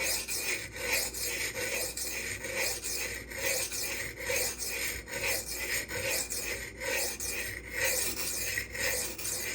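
M390 steel knife blade being ground back and forth on a silicon carbide whetstone, a steady rasping scrape of about two strokes a second. The edge is being worked to raise a burr along the heel, where it has not yet formed.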